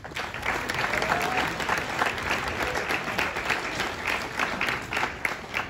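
Audience applauding: dense clapping that starts suddenly and runs on steadily.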